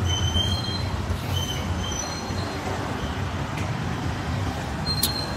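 Steady low background rumble, with several short high-pitched chirps in the first half and a sharp click about five seconds in.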